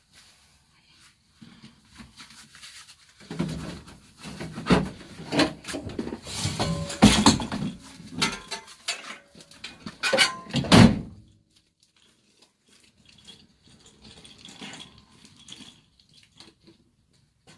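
Hard objects, scrap metal and e-waste, being handled and set down: a run of clattering knocks with brief metallic ringing, loudest in the middle and fading to faint shuffling near the end.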